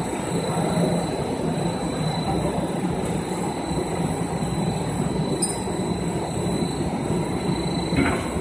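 HDPE geomembrane extrusion and nonwoven-laminating line running: a steady rumbling machine drone from its rollers and drive motors, with a faint high whine. There is a brief knock near the end.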